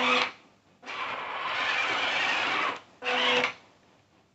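Electric drive motors and tracks of an SG1203 'Ripsaw' RC tank running on a tabletop in three spurts: a short whirring burst at the start, a longer, noisier run of about two seconds, then another short burst a little after three seconds.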